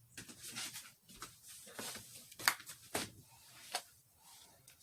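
Light kitchen handling sounds: scattered soft clicks, taps and rustles, the loudest about two and a half seconds in.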